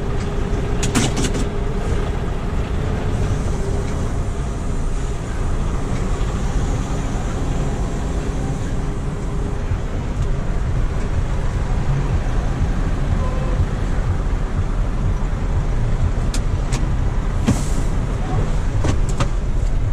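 A livestock truck's diesel engine running steadily as the truck is moved into its parking position, with a few clicks about a second in and a short hiss near the end.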